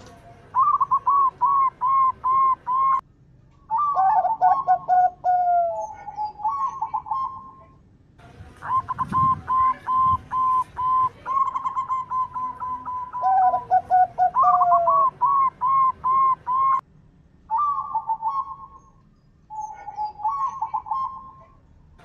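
Zebra dove (perkutut) cooing in repeated phrases. Each phrase is a run of quick, even coo notes on one pitch mixed with lower sliding notes, and there are a few short, sudden breaks between phrases.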